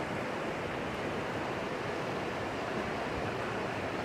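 Steady rushing of a fast-flowing mountain stream, an even noise that holds at one level throughout.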